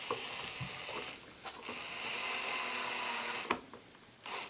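DeWalt cordless drill with a 1/16-inch bit running in short bursts to pilot-drill screw holes into a model airplane cowl: a steady high motor whine that stops about a second in, runs again for about two seconds, then gives a brief blip near the end.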